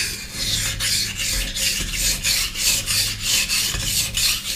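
Steel kitchen knife blade scraping back and forth across a wet whetstone, a rhythmic rasping at about four strokes a second. The edge is being ground to raise a burr.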